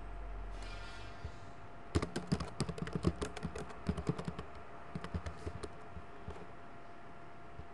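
Computer keyboard typing: a quick run of keystrokes that starts about two seconds in and stops after about four seconds, over a faint steady hum.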